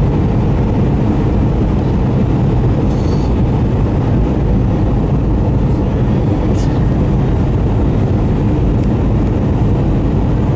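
Steady low rumble inside the cabin of an Airbus A320 in flight on its descent: engine and airflow noise heard from a window seat.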